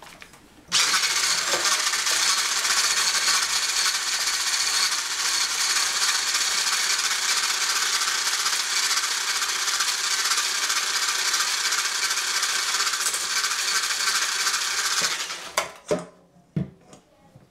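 Electric hand blender with a whisk attachment running steadily, whipping egg-yolk and mascarpone cream in a small steel saucepan. It starts about a second in and stops a second or two before the end, followed by a few light knocks of the whisk against the pan.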